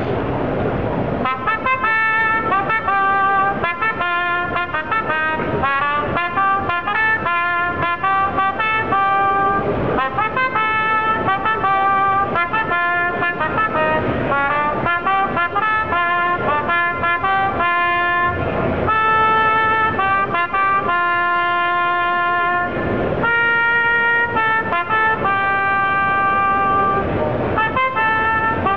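Toyota Partner Robot playing a trumpet: a melody of separate brass notes, some short and some held longer, beginning about a second in. The robot sounds a real trumpet with its artificial lips.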